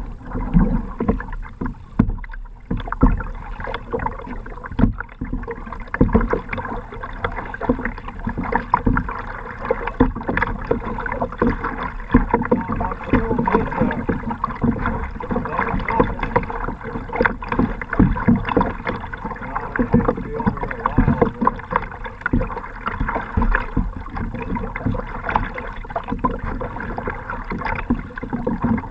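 Choppy lake water slapping and splashing against a moving kayak's hull close by, an irregular run of small splashes over a constant wash of water.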